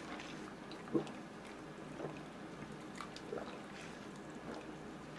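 Faint sipping through a straw from a plastic cup, with a few soft mouth clicks and gulps, the clearest about a second in.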